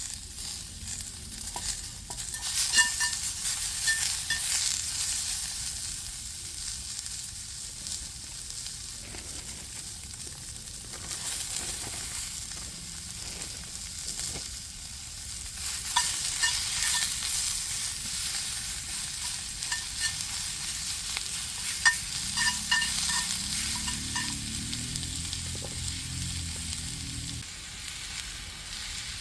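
Food sizzling and frying in a skillet over a campfire, swelling louder a few seconds in and again past the middle, with light metallic clinks and scrapes of stirring.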